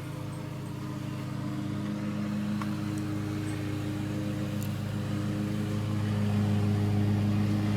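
A steady low machine hum, getting gradually louder.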